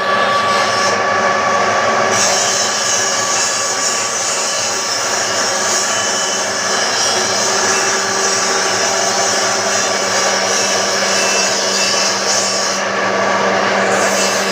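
Wood pellet mill running: a loud, steady mechanical noise with a constant low hum under a hissing grind.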